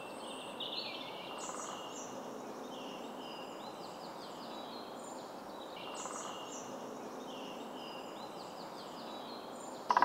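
Woodland birdsong: songbirds singing short, high phrases that step down in pitch, repeating over and overlapping, over a soft steady background hiss.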